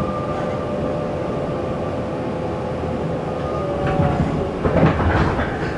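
Tobu 20050 series commuter train heard from inside the passenger car, its running gear rumbling steadily. A faint steady whine from the GTO-inverter traction drive fades out by about three and a half seconds in. From about four seconds in there is a burst of clattering knocks as the wheels pass over track joints.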